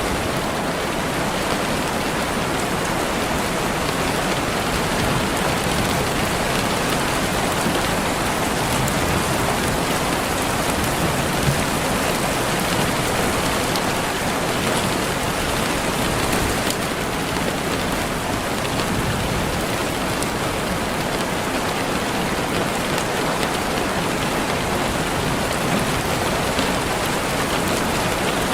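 Steady rain falling on a surface, an even hiss with many small drop ticks and no change in strength.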